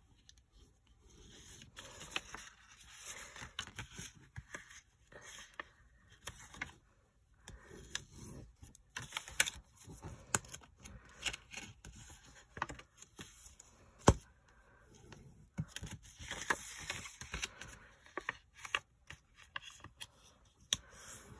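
Paper rustling and crinkling as a scored sheet is folded into an envelope, with a bone folder scraping along the creases and small taps against the mat. One sharp tap stands out about fourteen seconds in.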